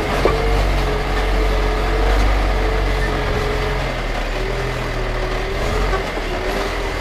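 Motor vehicle engine running steadily: a low rumble with a faint whine that drifts slightly up and down in pitch.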